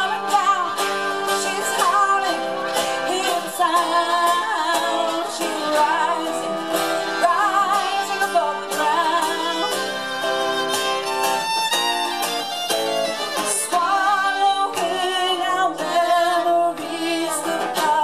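Live acoustic folk music: a fiddle bowing a wavering melody over acoustic guitar.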